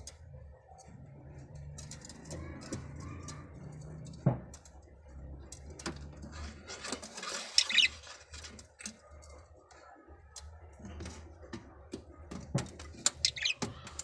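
Budgerigar chicks in a nest box giving short high chirps, loudest twice in the second half, amid scratching and shuffling as they move about on the nest floor, with one knock about four seconds in.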